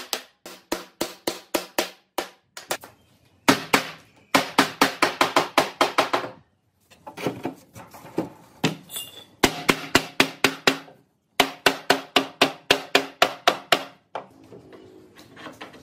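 Rapid hammer blows on a wooden block, knocking a wooden bed's side-rail tenon into the footboard post joint. The blows come in fast runs of about five or six a second with short pauses between runs, each a sharp knock with a pitched ring, and turn fainter near the end.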